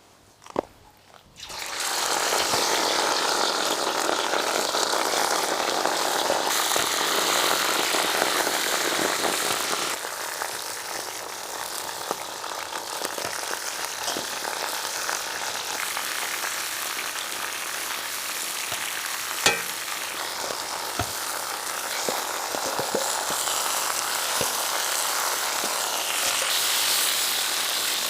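Food sizzling in hot fat in a cauldron, starting suddenly about two seconds in as a steady, dense hiss with scattered small pops; it eases a little partway through.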